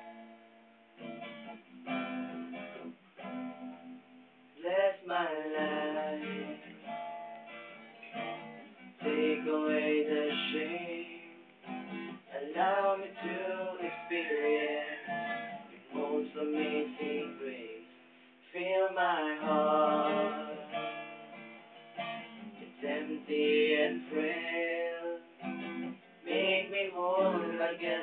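Acoustic guitar being strummed, with singing joining in about five seconds in and carrying on over the chords.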